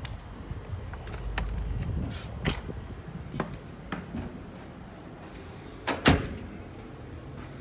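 A few knocks and clicks, then a heavy door thump about six seconds in as a glass-paned terrace door is opened and shut.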